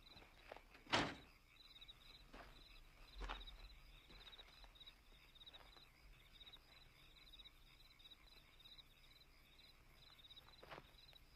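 Crickets chirping steadily in a faint, rapid trill, with a few scattered footsteps, the loudest about a second in.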